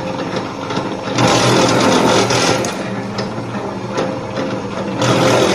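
Electric wire stripping machine running steadily with a constant mechanical hum, growing louder and harsher for about a second and a half starting a second in, and again near the end, as it works.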